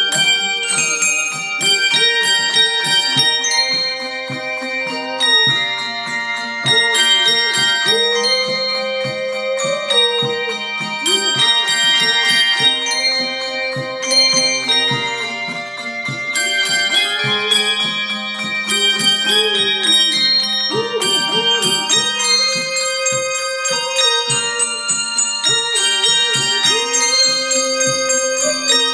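A handbell ensemble playing a tune, many bells struck and left ringing together. Beneath the bells runs a lower melody that slides and wavers in pitch.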